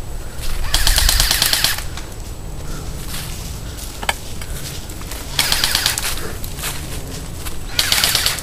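Airsoft guns firing three bursts of rapid full-auto shots, one about a second in, one a little past the middle and a short one near the end. Low wind rumble throughout.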